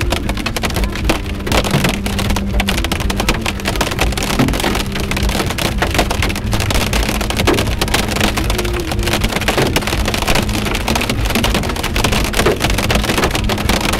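Heavy storm rain pelting the roof and windshield of a moving car: a dense, steady patter of drop impacts over the car's road noise.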